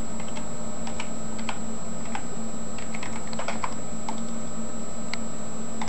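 Computer keyboard keystrokes: sparse, irregular clicks as a command is typed, over a steady background hum and a faint high whine.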